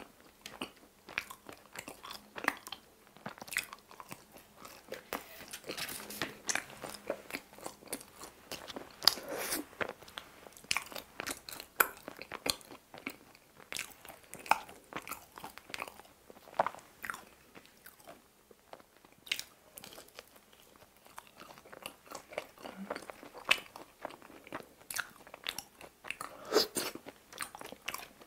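Close-miked chewing and biting of crisp pizza crust: irregular crunches and wet mouth clicks, one after another.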